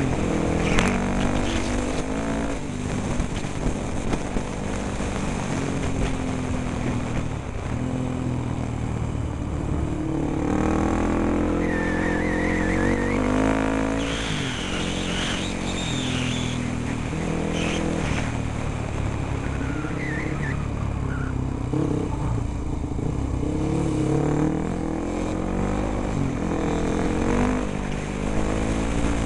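Enduro dirt bike engine heard from on board at speed, its revs climbing and dropping again and again as the rider accelerates and shifts gears, over a steady rush of wind on the microphone.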